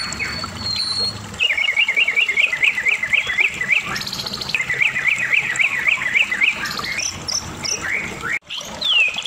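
White-rumped shama (Medan murai batu) singing hard: a few high whistled notes, then two long runs of fast, repeated up-and-down notes starting about a second and a half and four and a half seconds in, with a brief break near the end.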